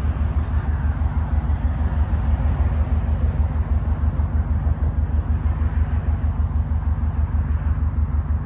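Subaru Impreza STi Type UK's forged 2.5-litre turbocharged flat-four (boxer) engine idling steadily. Heard from the exhaust side as an even, low pulsing burble.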